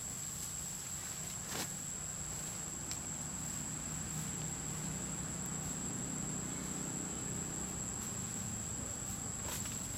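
An insect keeps up one steady, unbroken high-pitched note over a low background rumble, with two faint clicks, one about one and a half seconds in and one near the end.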